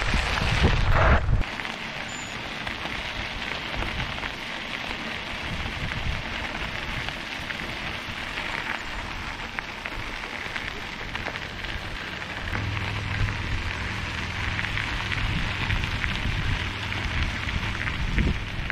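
Bicycle and trailer tyres rolling over a crushed-gravel trail: a steady crunching hiss. A gust of wind rumbles on the microphone for the first second and a half.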